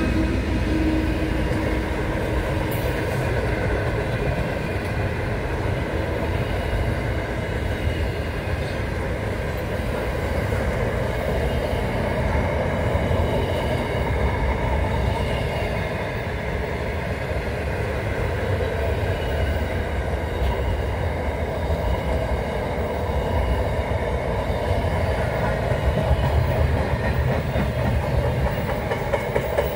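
Freight train's container and flat wagons rolling past close by: a steady rumble of steel wheels on the rails, slightly louder near the end.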